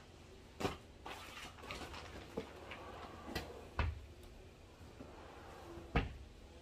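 Rustling as a plastic-wrapped pillow is handled, with four sharp knocks and thumps as things are set down and moved about a wooden platform bed, the loudest near the end.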